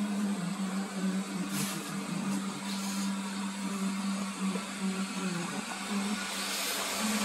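Electric blower fan of an inflatable jack-o'-lantern-in-the-box decoration running steadily: a constant low hum under an even rush of air.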